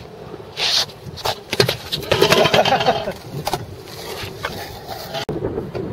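Freestyle scooter wheels rolling and scraping on a concrete skatepark, with a burst of clattering knocks and scrapes about one and a half to three and a half seconds in, as a rider bails and the scooter hits the concrete.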